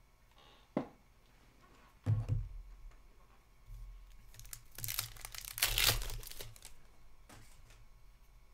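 An Upper Deck hockey card pack being torn open by hand, its wrapper crinkling. There is a sharp tap about a second in and a thump about two seconds in, and the loudest tearing comes around five to six seconds in.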